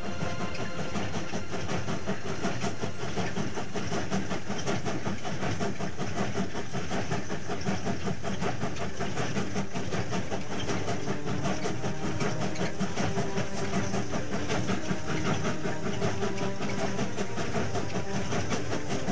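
Steam locomotive running: a fast, even chuffing pulse over a steady hiss.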